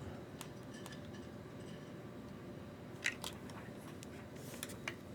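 Small parts being handled on a workbench: a few scattered sharp clicks, the loudest about three seconds in, and a brief rustle near the end.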